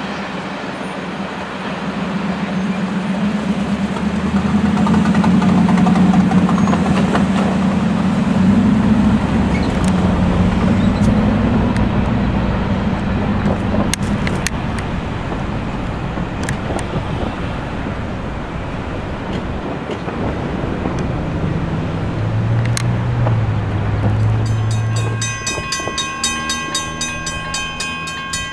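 A diesel train rumbling by: a low steady drone that swells and fades, with scattered sharp clicks. Near the end a railroad crossing bell starts ringing in a fast, even rhythm.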